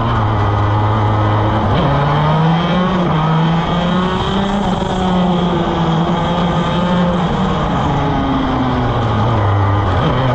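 175cc two-stroke shifter kart engine at racing speed. It accelerates out of a corner with a sudden jump in pitch about two seconds in, then runs on, wavering, before falling in pitch near the end as the kart slows for the next corner.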